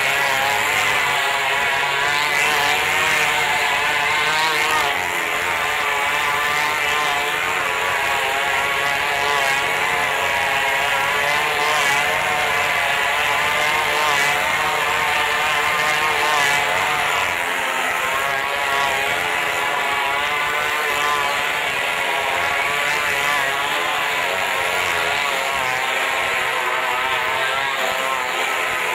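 Small motorcycle engines running hard and without a break as they circle inside a vertical wooden wall-of-death drum. The engine note wavers slightly up and down.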